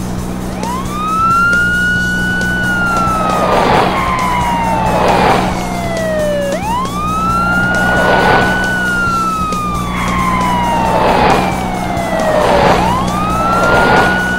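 Cartoon police siren sound effect: a wail that rises quickly, holds, then slides slowly down, three times about six seconds apart, over a steady low drone and short rushing swells every second or two.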